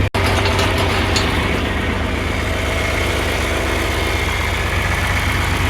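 John Deere 4020 tractor engine idling steadily, with the sound dropping out for an instant just after the start.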